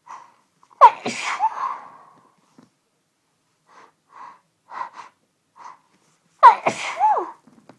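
A woman sneezing twice in a sneezing fit: a loud, voiced 'achoo' about a second in and another near the end. Several short, quick breaths come in between as the second sneeze builds.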